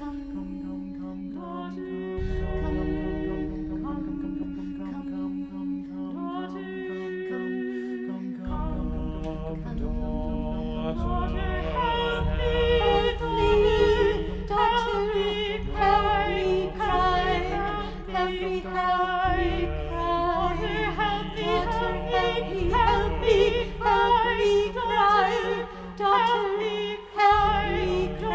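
A vocal quartet singing slow, sustained chords in close harmony, the voices wavering with vibrato. About eleven seconds in the upper voices fill out and the singing grows fuller and a little louder.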